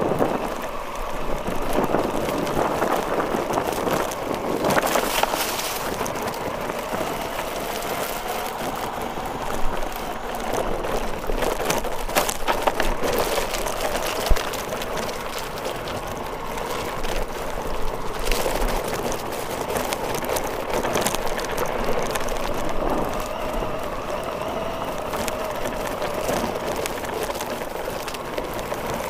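Radio-controlled car driving over grass and ground: steady motor and tyre rumble with a faint wavering whine and a few sharp knocks as it bumps along.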